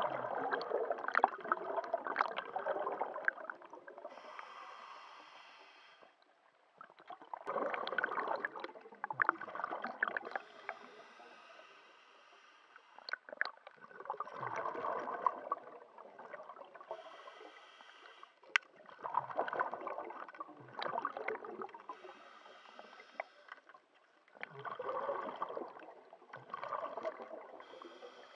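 Scuba diver breathing through a regulator underwater: five breaths, each a bubbly exhale lasting a few seconds, followed by a shorter high hiss of the next inhale.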